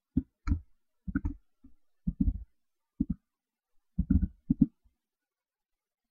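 Computer keyboard being typed on: irregular short taps and little clusters of keystrokes, with dead silence between them.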